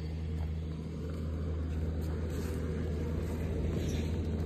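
Steady low rumble of road traffic on a highway, growing a little louder near the end.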